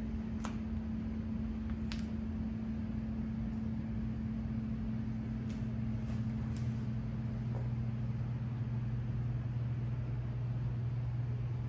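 A steady low machine hum with an even hiss, and a few faint clicks over it about half a second in, about two seconds in, and around six seconds in.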